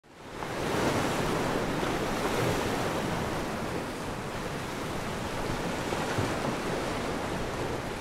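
Sea surf: small waves breaking and washing up a sandy beach, a steady rushing hiss that swells gently and fades in over the first second.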